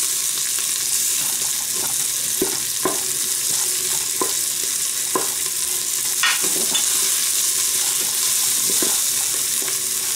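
Sliced onion and garlic sizzling steadily in olive oil in the bowl of a Cookéo electric multicooker, sautéing as they turn translucent. Scattered clicks and scrapes come from a spoon stirring them against the bowl.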